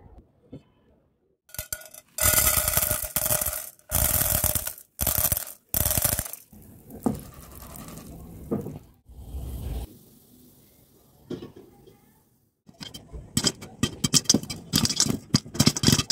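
Corn kernels sizzling in hot oil in a pan, in several short loud spells. From about 13 seconds in, popcorn popping fast under a glass lid, a dense run of sharp clicks.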